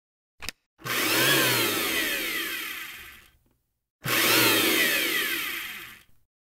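A short click, then the same noisy sound effect played twice, each lasting about two and a half seconds. Each one starts loud, sweeps briefly up and then down in pitch, and fades out.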